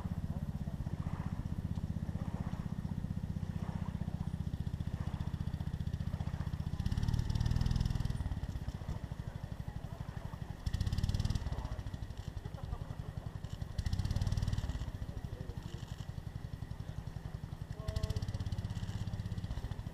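A motor engine running steadily with a fast, even pulse, swelling louder four times for a second or so each.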